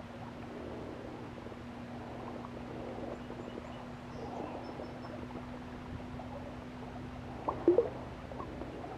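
Faint handling rustle over a steady low hum as a largemouth bass is unhooked and held, then a short splash and slosh of water near the end as the bass is lowered back in and released.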